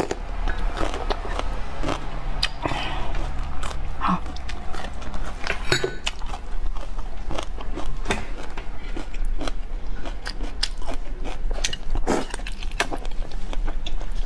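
Close-miked crunchy biting and chewing of a raw green bell pepper, many sharp crisp crunches, then slurping and chewing of noodles later on. A steady low hum runs underneath.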